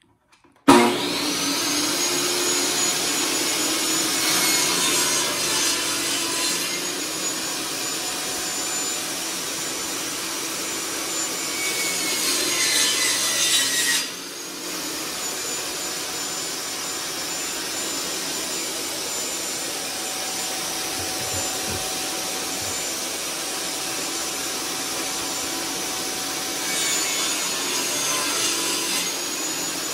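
Table saw running and cutting rabbets along the edges of pine boards. The motor starts abruptly about a second in with a rising whine, and the whine sags in pitch as the blade works through the wood.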